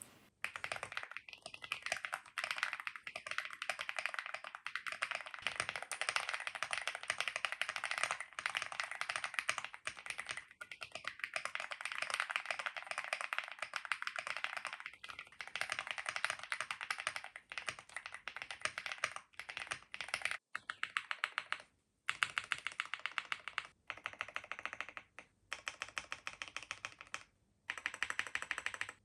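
Fast typing on a mechanical keyboard fitted with Keytok KOL Pixel keycaps, tall KOL-profile PBT caps: a rapid stream of key clacks with a slightly deep sound. There are a few brief pauses in the second half.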